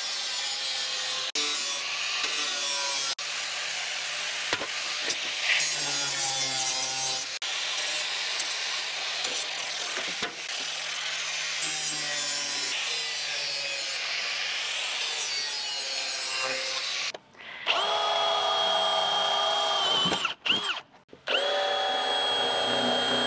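Power tool cutting aluminium treadplate, a loud noisy cutting sound with short pauses between passes. For its last few seconds, a drill's motor whines steadily in two runs as holes are drilled in the floorboard.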